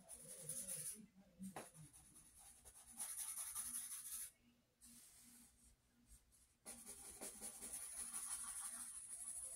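Pen scratching across drawing paper in quick shading strokes. The strokes come in three faint spells, with short pauses about a second in and between about four and six and a half seconds in.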